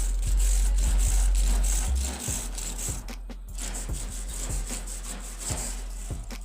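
Steel wire brush scraping rust off a metal dog cage in rough back-and-forth strokes, louder for the first two seconds and then lighter.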